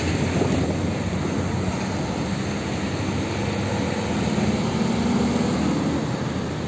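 Water spraying steadily onto a muddy toy truck to wash it: a constant rushing hiss that barely changes.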